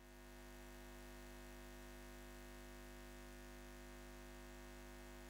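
Faint, steady electrical hum, a low buzz with a stack of even overtones, fading in over the first second.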